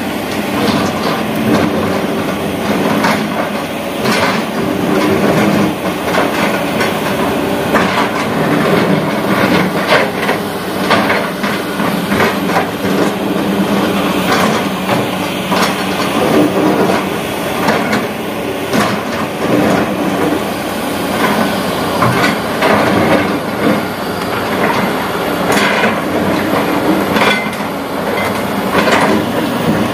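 Kobelco hydraulic excavator's diesel engine running steadily under load while it loads sand and stone into a steel dump truck, with frequent irregular clatter and knocks of rock and the bucket striking the truck body.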